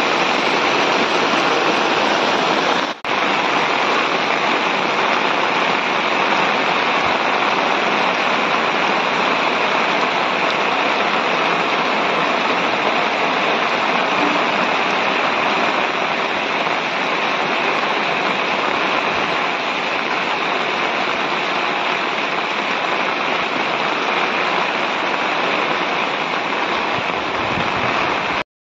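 Heavy rain falling on flooded ground, together with muddy runoff water rushing past: a loud, steady wash of water noise. It drops out briefly about three seconds in and again just before the end.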